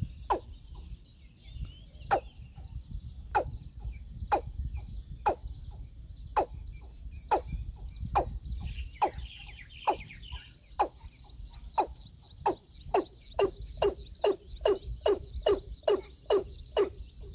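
Watercock calling: a long series of short, slightly falling notes, about one a second at first and speeding up to about three a second near the end. A steady high chorus of insects runs under it.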